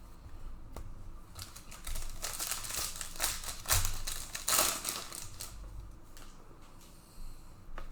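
Trading card packs being torn open and the cards handled: crinkling wrapper and a quick run of clicks and rustles, busiest in the middle few seconds.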